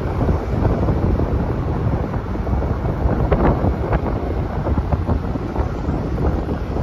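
Wind buffeting the microphone of a camera moving along a street, a steady low rumble with road traffic mixed in.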